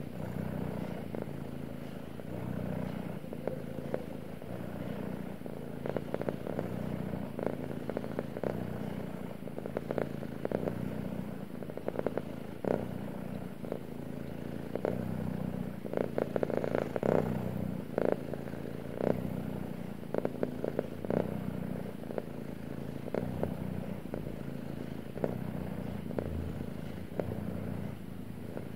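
Domestic cat purring close up, a steady low rumble that swells and eases with its breaths. Short scratchy crackles from fingers rubbing its fur come and go over the purr and are thickest a little past the middle.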